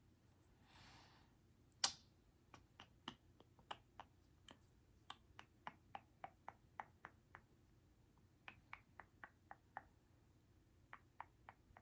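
Mechanical keyboard typed on softly: irregular keystroke clicks in short runs with pauses between, one louder click about two seconds in. A brief soft rustle comes just before it.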